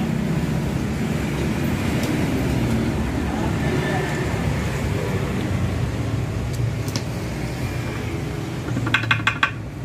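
Steady low background rumble with a few light metallic clicks as the ball joint of a car's front lower control arm is dismantled by hand; a quick run of sharp, ringing metal clinks comes near the end.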